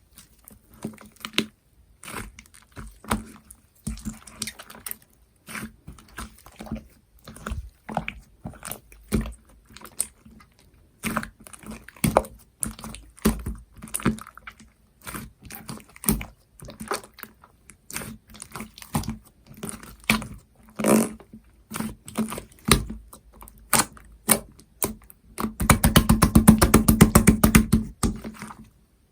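Slime being squeezed, poked and pressed by hand: irregular sticky clicks and wet pops. Near the end comes a fast, dense run of rapid popping lasting a couple of seconds.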